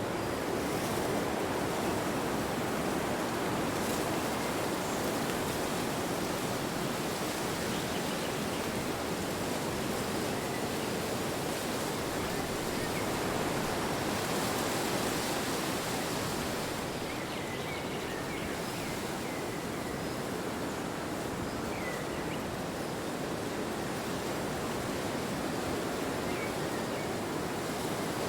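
Steady wind blowing: a continuous rushing hiss that eases slightly past the middle.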